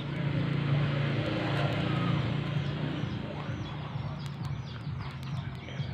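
Steady low engine hum, louder in the first half and easing off, with short high chirps repeating about twice a second from about four seconds in.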